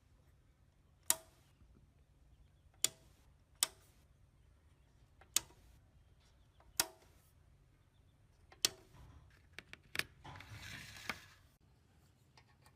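Sharp, separate clicks and knocks of small hard parts being handled, about seven of them spaced a second or two apart, then a brief scraping rustle near the end.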